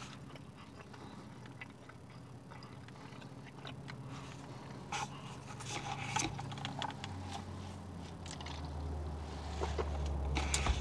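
Foil sandwich wrapper crinkling in the hands while eating, in short scattered crackles, over a low steady hum that grows louder in the last few seconds.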